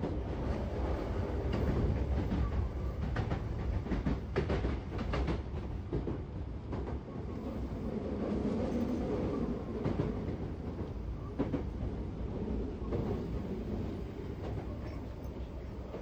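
Inside a moving passenger train car: the steady low running rumble of the train, with the wheels clicking over rail joints, most often in the first few seconds, then running more smoothly.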